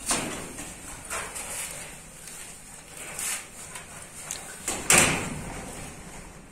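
Scraping, rustling and knocking of a person crawling through a low gap over rough concrete, with a louder sudden thump about five seconds in.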